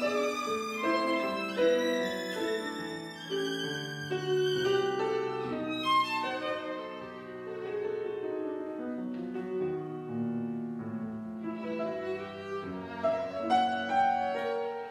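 Violin and grand piano playing classical music together, the violin carrying a melody of quickly changing notes over the piano accompaniment.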